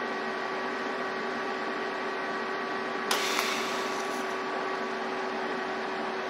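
TIG welding arc buzzing steadily as a steel hinge tube is welded to its strap, with a louder hiss for about a second just past the middle.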